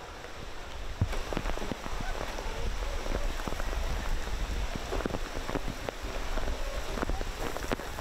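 Heavy rain pattering on pavement, full of sharp drop taps, with a low wind rumble on the microphone; it turns louder about a second in.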